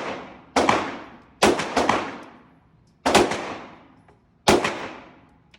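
Gunshots fired one at a time, about six of them, each a sharp crack followed by an echo that dies away over about a second. Three come in quick succession about a second and a half in.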